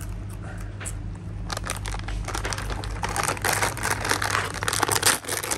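Crinkly packaging being handled: a dense run of crackles that starts about a second and a half in and is thickest near the end, over a low steady background hum.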